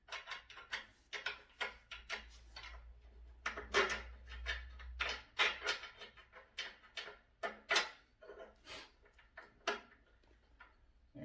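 Irregular knocks, clicks and clatters of a table saw being handled and seated onto its metal leg stand until it locks into place, with a low rumble of shifting weight about four seconds in.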